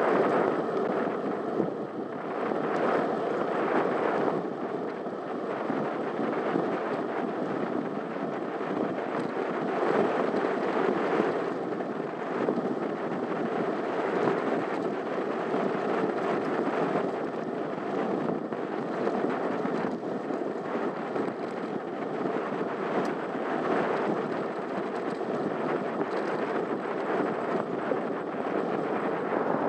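Steady rush of wind on the microphone and bicycle tyres rolling on tarmac while cycling along a country lane. The noise swells and eases slightly with the ride.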